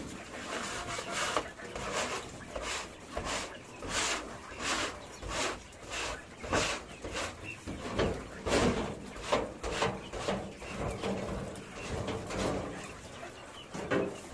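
A hand scraper scraping quail droppings off a cage droppings tray into a wheelbarrow, in quick repeated strokes of about one and a half a second.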